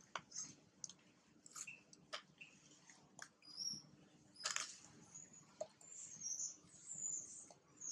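Faint, scattered clicks and taps from a baby macaque biting and chewing on a strip of black plastic, with a few high chirps in the second half.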